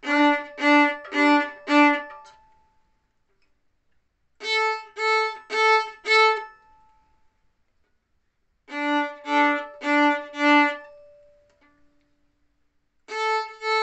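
Violin bowed in groups of four short, separate notes on one string, with silent gaps between the groups: four on the D string, a pause, four on the A string, a pause, four on the D string again, a pause, then the A string near the end. The silent gaps are the quiet bow moves between strings that the exercise trains.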